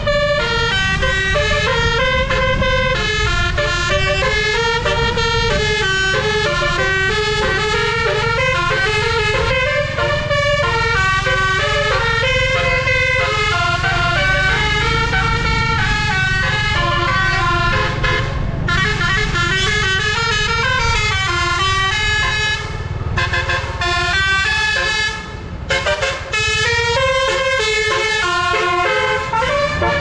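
Bus telolet 'basuri' musical horn playing a continuous stepping melody, several notes sounding together, over a low engine and road rumble. The melody breaks off briefly twice in the later part.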